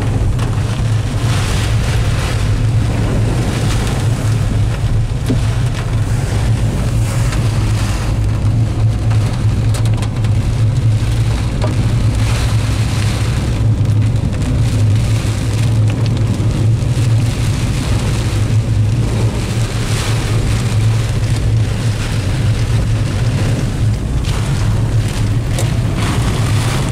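Heavy rain drumming on a car and its tyres splashing through water on a flooded road, heard from inside the moving car over a steady low engine and road rumble.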